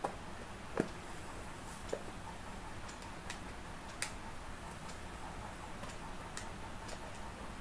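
Scattered sharp clicks and taps as a plastic aquarium air-pump housing and its small screws are handled and the bottom cover is fitted back on. There are about half a dozen clicks, irregularly spaced, over steady low background noise.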